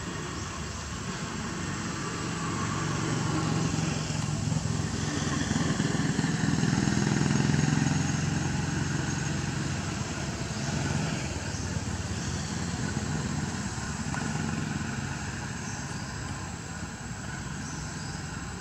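A motor vehicle engine running, its low hum swelling to its loudest about seven or eight seconds in and then fading, as a vehicle passes by.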